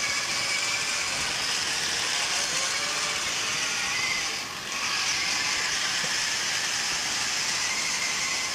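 Small geared electric drive motors of a four-wheel Mecanum-wheel robot whining steadily as it drives across carpet. The pitch wavers as the wheel speeds change, and the sound dips briefly about halfway through.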